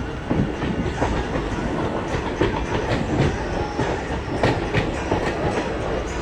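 Train running along the track, a steady rumble with its wheels clicking over the rail joints again and again.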